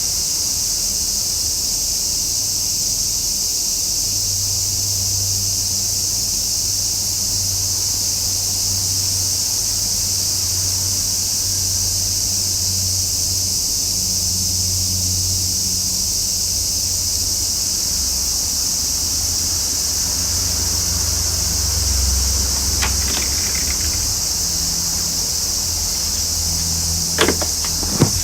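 A chorus of summer cicadas buzzing in one continuous, even, high-pitched drone. A faint low hum lies underneath, and a few sharp clicks come near the end.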